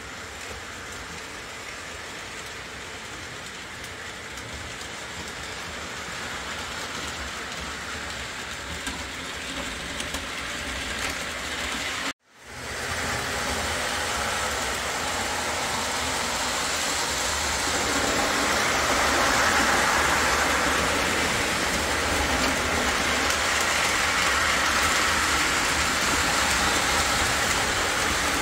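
Model train rolling along layout track with a continuous rolling rumble and wheel clatter. The sound breaks off for an instant about twelve seconds in, then comes back louder.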